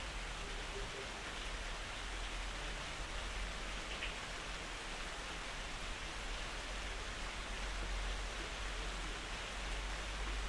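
Steady hiss-like background noise with a low hum beneath it.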